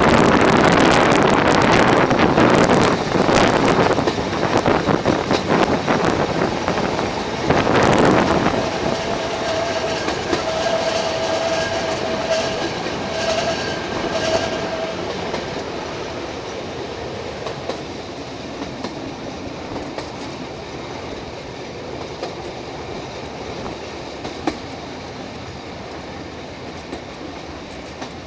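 Vintage streetcar heard from on board: the wheels rumble and clatter over the rails, loudest in the first several seconds. Around ten seconds in, the wheels give a steady squeal for several seconds, typical of flanges on a curve. The running noise then grows gradually quieter as the car rolls on.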